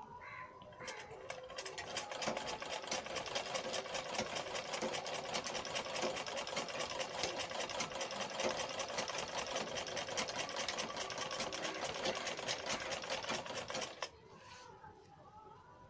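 Sewing machine stitching cloth at a fast, even rate, the needle ticking rapidly. It starts up about a second in and stops suddenly near the end.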